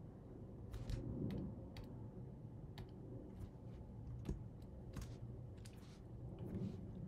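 Irregular, faint clicking of a computer mouse and keyboard, about a dozen clicks spread unevenly, over a low steady background hum.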